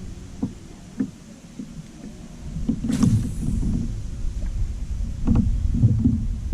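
Wind buffeting the microphone and water slapping against a kayak hull, with a few sharp knocks. The loudest knock comes about three seconds in, and there are more a little after five seconds.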